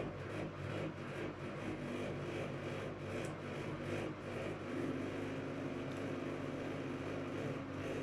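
Whirlpool FSCR90425 front-loading washing machine on an 800 rpm spin with an unbalanced load: the drum motor runs with a steady hum and a rhythmic pulsing over the first few seconds, settling into a steadier motor tone from about halfway through.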